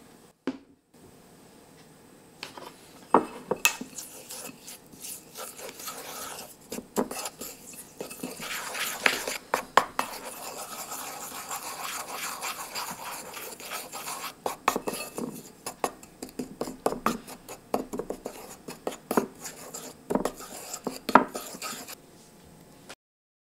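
Small wooden spoon stirring an oily mix of chopped garlic and cumin in a small black bowl: wet scraping with irregular clicks and taps of the spoon against the bowl. The stirring starts a few seconds in and is busiest around the middle.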